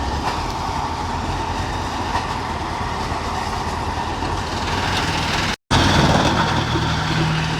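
Drum wood chipper running with a dense, steady rattling clatter. About three-quarters of the way through, the sound cuts out for an instant and comes back with a steadier low hum.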